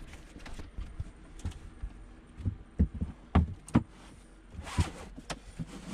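A run of dull knocks and thumps on a wooden bunk-top hatch lid as it is handled and opened, the three loudest close together about halfway through, followed by a short scraping rustle.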